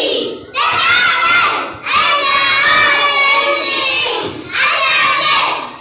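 A group of young children chanting loudly in unison, in three shouted phrases with short breaks between them.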